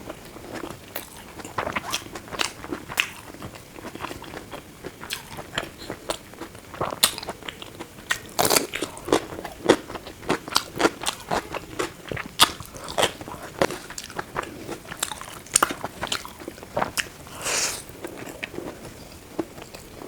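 Close-miked eating: irregular crisp bites and crunching chews of a veg biryani meal with puri, chhole and salad, with one longer crunch about three-quarters of the way through.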